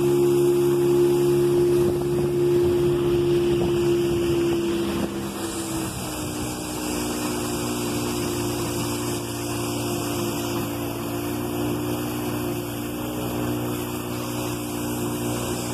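Outboard motor driving a small canoe at speed, a steady engine hum over the rush of water along the hull. About five seconds in, the engine note drops slightly and gets a little quieter.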